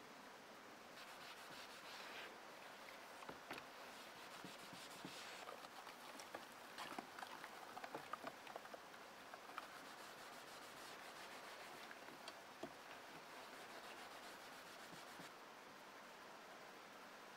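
Faint handling noise: soft rubbing with scattered light clicks and taps, thickest in the middle, over an otherwise near-silent background.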